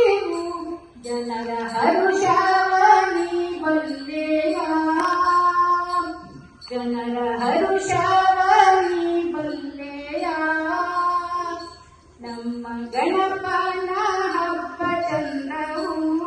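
An elderly woman singing solo into a handheld microphone, in long held phrases with ornamented glides in pitch. She breaks off briefly about a second in, around six and a half seconds, and around twelve seconds.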